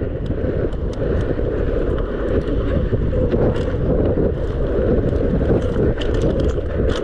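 Mountain bike riding fast down dirt singletrack: steady wind buffeting the action camera's microphone over the rumble of knobby tyres on dirt, with scattered small clicks and rattles from the bike and trail.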